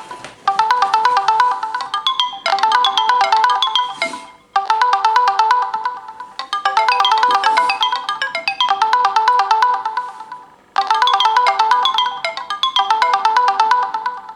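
Samsung Galaxy phone alarm tone ringing: a fast melody of bright, chiming notes played over and over, breaking off briefly a few times before starting again.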